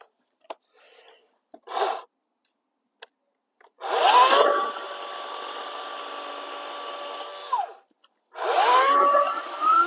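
A 40-volt cordless electric chainsaw with a 14-inch bar makes two quick cuts through small limbs, about four seconds each. Each time the motor spins up with a rising whine, then holds a steady whine over the hiss of the chain in the wood. The first cut stops abruptly. A few light knocks come before the first cut.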